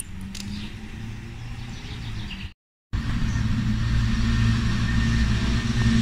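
Low steady motor hum, like an engine running, broken by a short dead-silent gap about two and a half seconds in and louder after it.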